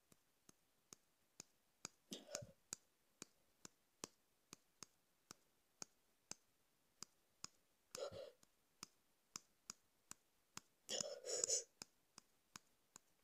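A man's heavy breaths or breathy groans, three of them, the last and longest about two-thirds of the way through. Under them run faint regular clicks, about two a second.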